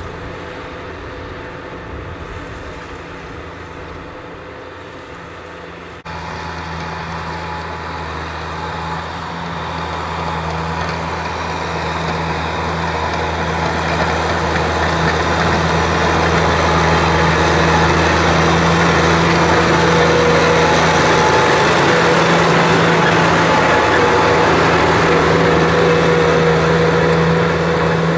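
Kubota tractor's diesel engine running steadily under load while pulling a disc plough through dry soil. The sound changes abruptly about six seconds in, then grows louder and holds steady for the second half.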